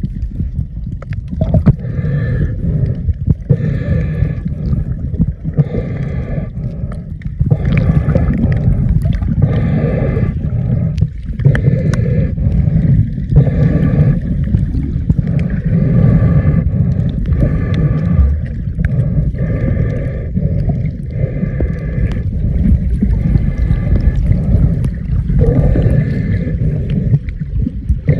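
Underwater recording from a snorkeler's camera: a steady low rumble and gurgling of moving water against the camera, with muffled pitched pulses repeating about once a second.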